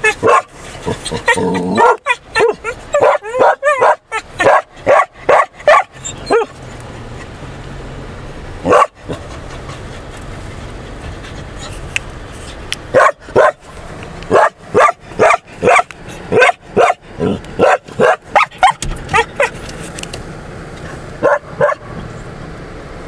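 A dog barking and yipping excitedly inside a car at bison outside, in rapid bouts with short pauses between them.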